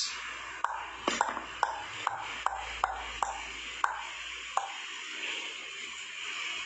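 A run of about ten short, sharp clicks, roughly two or three a second, stopping a little over halfway through, over a faint steady hiss.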